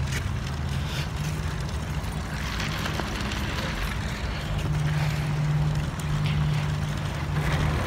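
A motor vehicle's engine running in a parking lot, a steady low hum that grows louder a little past halfway and eases just before the end, over a haze of outdoor traffic noise.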